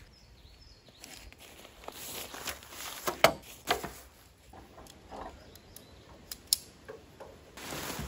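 Nylon tent fabric and its stuff sack rustling as a dome tent is unpacked on a wooden deck, with a few sharp clicks and knocks, the loudest about three seconds in and again a little later.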